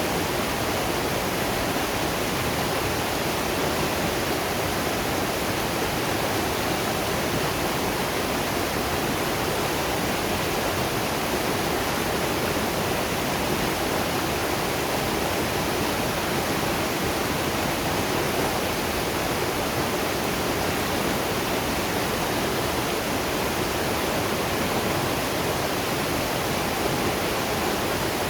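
Waterfall rushing steadily, an even wash of water noise that spreads across high and low pitches and never changes in level.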